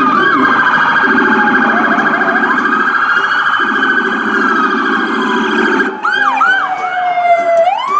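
Several police car sirens sounding at once: a fast warbling yelp over slower wails that glide up and down. Quick whoops come about six seconds in, and a long falling wail comes near the end.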